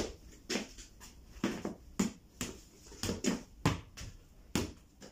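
A football being juggled on the feet, one in a rubber wellington boot: about a dozen uneven thuds as it is kicked up, some coming in quick pairs.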